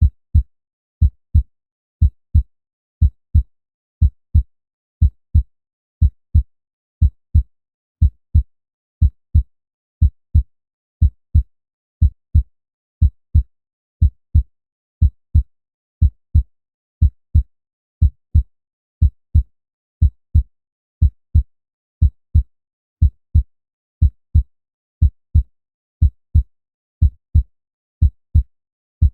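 Human heartbeat sound effect at 60 beats a minute: a steady lub-dub, two low thumps close together, repeating once every second.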